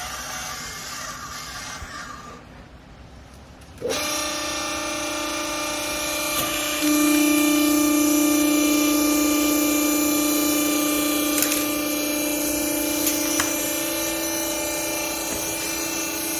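Electric motor and hydraulic pump of a vertical clothing baling press starting about four seconds in, then running with a steady whine that steps louder about three seconds later.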